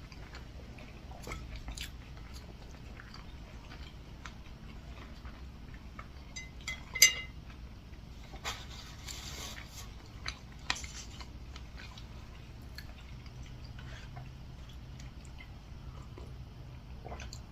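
Close-up chewing and biting of food, with scattered soft clicks and a sharp tap about seven seconds in and a smaller one a few seconds later.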